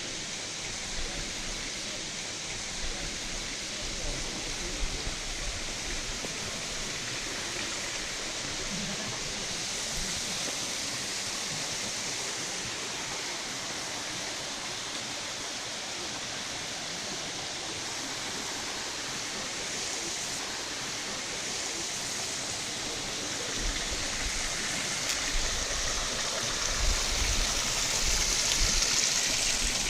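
Running water rushing steadily, as in the flowing channels of a trout farm, growing louder near the end with some low rumbling on the microphone.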